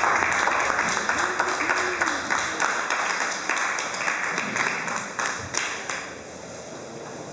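Audience applauding, a dense patter of many hands clapping that fades out over the last second or two, with a few voices calling out.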